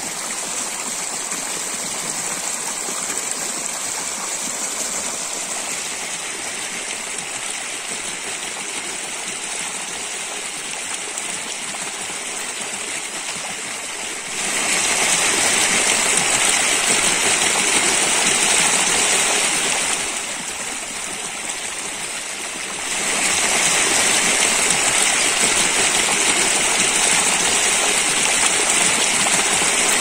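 Mountain stream running over shallow rock cascades: a steady rush of water. It steps louder about halfway through, eases back, then rises again about three-quarters of the way through.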